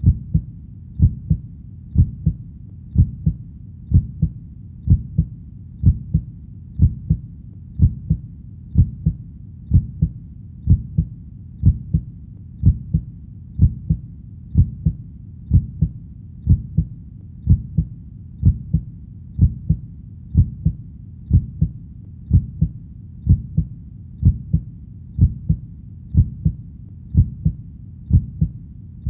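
A steady heartbeat at about one beat a second, each beat a low double "lub-dub" with the second part softer.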